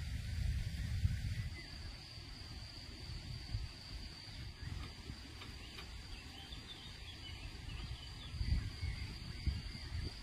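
Outdoor rural ambience: a steady high-pitched insect drone with faint bird chirps over an uneven low rumble.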